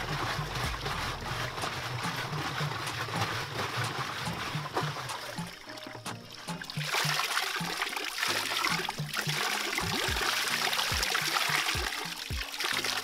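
Spring water pouring from a pipe into a plastic jerry can and splashing into the pool below, getting louder about halfway through. Background music with a steady beat plays throughout.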